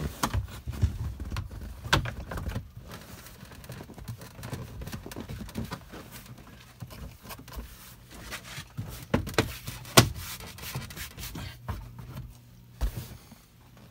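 Plastic lower dash trim panel rubbing and knocking against the dashboard as it is worked back into place by hand, with a scattering of sharp clicks and taps, the loudest about ten seconds in.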